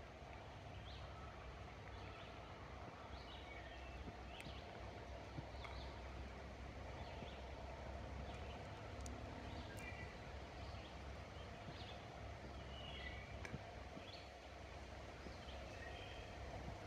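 Faint outdoor ambience: scattered short bird chirps over a low, steady rumble, with a few sharp clicks.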